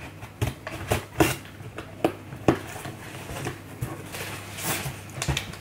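A parcel being unpacked by hand: a string of sharp clicks and knocks from the box and its contents, with a rustle of packaging near the end.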